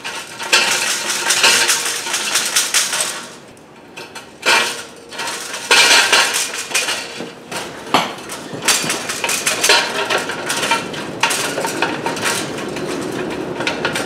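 Coiled 8 mm copper tube scraping and clinking against the inside of a metal chimney pipe as it is worked in, in irregular bursts with a short lull about four seconds in; the tube is a tight fit and does not want to go in.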